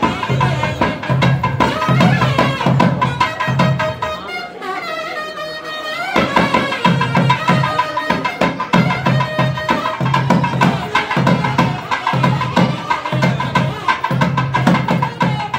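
Music with a steady drum beat. The drums drop out for about two seconds a little after four seconds in while the melody glides on, then the beat comes back.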